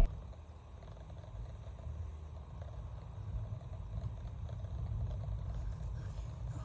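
Low, steady rumble of wind buffeting the microphone, wavering in strength.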